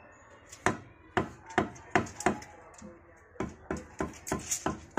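Hammer tapping lightweight AAC (hebel) blocks to seat them on the wall. It comes in two runs of quick, sharp knocks, about five and then about six, with a pause of roughly a second between them.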